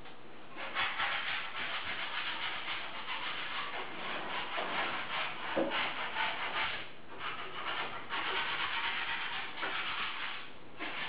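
Wallpaper being rubbed and smoothed against a wall by hand, a dry scraping rustle in strokes of one to three seconds with short breaks between them.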